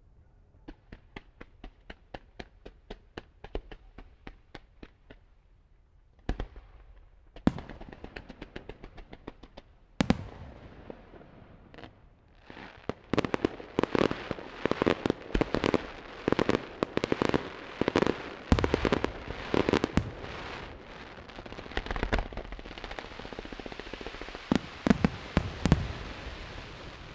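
Aerial fireworks display: a quick run of sharp cracks, about four a second, for the first few seconds, then single heavy shell bursts. From about twelve seconds in it builds into a dense barrage of booming bursts over continuous crackling.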